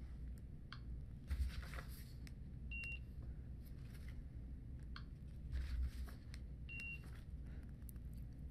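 Handheld barcode scanner beeping twice, about four seconds apart: one short high beep for each barcode read. A second or so before each beep comes a brief burst of rustling noise, over a low steady hum.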